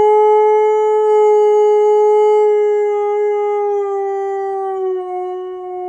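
A Siberian husky's howl: one long, unbroken held note that dips slightly in pitch a little before five seconds in.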